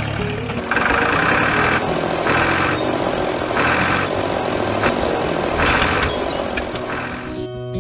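A vehicle engine hums steadily, broken by short hissing bursts every second or so. Music begins near the end.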